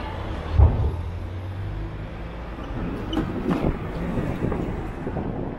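Road traffic noise heard from a moving motorcycle: a steady low rumble of motor vehicles, with a sharp thump about half a second in.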